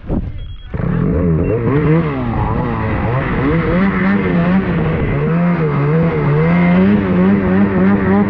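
Snowmobile engine starting up about a second in and running hard, its revs rising and falling unevenly as the machine is ridden through deep snow.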